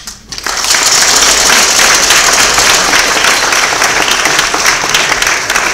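Audience applause, dense and steady, rising in about half a second in and running on at a high level.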